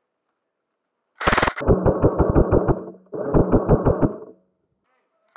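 G&G RK74 airsoft electric rifle firing two full-auto bursts of about a second each, its gearbox cycling at about seven shots a second, with another short shot right at the end.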